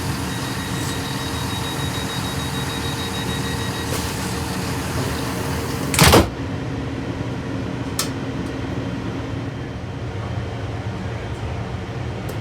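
Inside a Class 166 Turbo diesel multiple unit under way: the steady drone of its underfloor diesel engine and transmission with running noise. About six seconds in there is a short loud burst of noise, and a sharp click follows about two seconds later.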